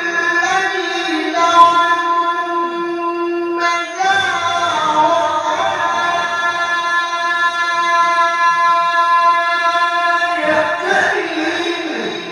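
A qari's Quran recitation (tilawah) in a high register through a microphone: one man's voice holding long, ornamented melodic notes. The first phrase breaks off about four seconds in, and a second long phrase is held until near the end.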